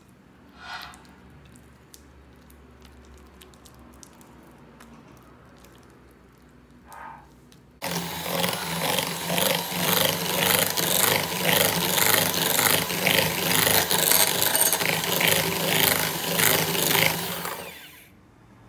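Electric hand mixer beating mascarpone into an egg yolk mixture in a glass bowl: it switches on abruptly about eight seconds in and runs for about ten seconds with a steady motor hum and rapid clatter, then winds down near the end. Before it starts there are only a few brief soft sounds.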